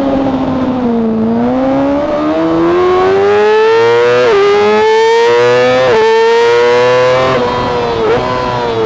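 Onboard sound of a Yamaha R6's inline-four engine revving high under hard acceleration through an Akrapovic exhaust. The pitch climbs, then drops sharply with quick upshifts about four and six seconds in, and sags near the end as the throttle eases, with wind rush over the microphone.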